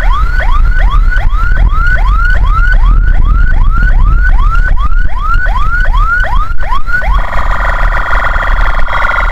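Ambulance's electronic siren on a fast yelp, quick rising sweeps a little over two a second. About seven seconds in it switches to a steady, multi-toned blare. Low engine and road rumble runs underneath.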